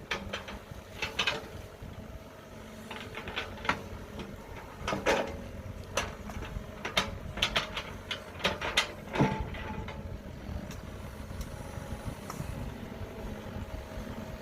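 Kobelco excavator's diesel engine running steadily while it digs and piles soil, with a string of sharp clanks and knocks from the working machine, thickest in the middle.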